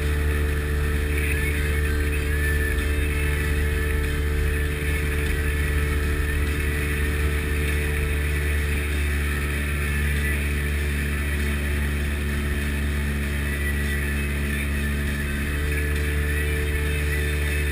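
Sea Ray Sea Rayder jet boat's two-stroke engine running steadily under way, with a hiss of wind and water over it. A few of its tones drop out midway and then return.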